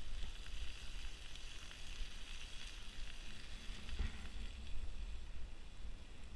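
Sausages and freshly poured egg frying in cast-iron skillets over a wood fire: a steady sizzle.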